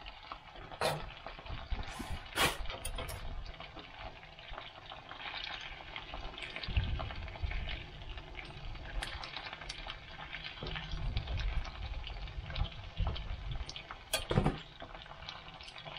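Chicken nuggets frying in fat in a mild steel skillet, a steady sizzle, with a few sharp metallic clinks as the lid comes off and a spatula turns them in the pan.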